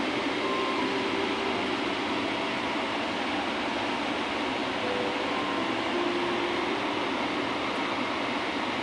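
Steady rushing hum of an airliner cabin, the air-conditioning and ventilation noise of a seated passenger cabin, with faint short tones now and then.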